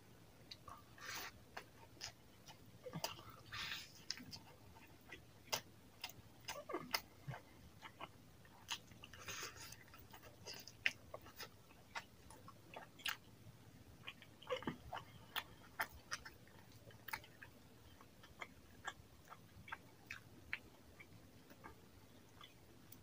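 Close-miked eating of chicken curry and rice by hand: many quick, irregular wet smacks and clicks of chewing, with a few longer squelching stretches.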